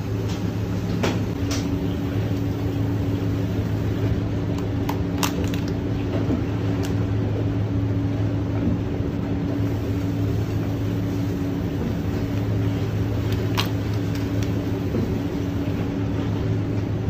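Steady low mechanical hum, with a few short light clicks as lobster shells are handled on a plate and steel tray.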